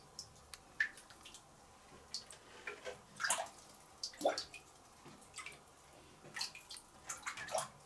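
Irregular drips, plinks and small plops of water in a cave pool, with a few brief clusters of splashing.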